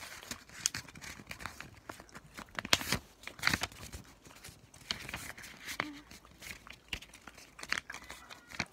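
A sheet of paper being folded and creased by hand, with irregular crinkles and sharp rustles.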